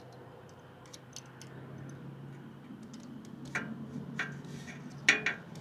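Small metal clicks and ticks of hand work on the brake linkage as a cotter pin is fitted: sparse light ticks at first, then a few sharper clicks in the second half. A faint steady hum runs underneath.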